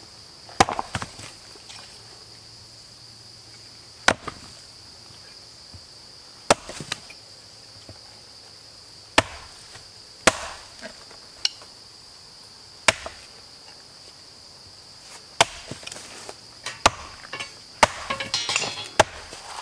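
A hatchet chopping wood on a stump to split kindling: about ten sharp strikes a second or more apart, with a flurry of smaller knocks near the end. A steady high buzz of insects runs underneath.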